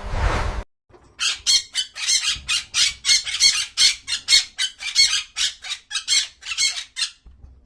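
Parrot squawking: a fast series of short, harsh screeches, about three a second, starting about a second in and stopping near the end.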